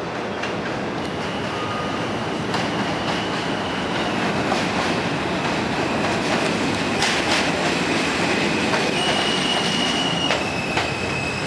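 R160 subway train pulling into an elevated station and slowing along the platform: steel wheels rumbling on the rails with a few sharp clicks. A steady high-pitched squeal runs over it and gets stronger near the end.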